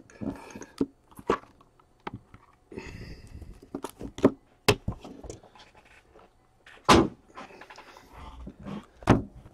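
Hard plastic card cases and holders clacking and knocking on a tabletop as they are handled and moved. The sound is a string of sharp clicks with a few louder knocks and short stretches of rustling between them.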